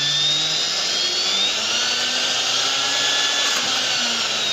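Electric motor of a Bosch angle grinder, turned into a homemade rotary tool with a flexible shaft, running under thyristor speed control. Its whine slides slowly up and down as the speed is changed between high and low.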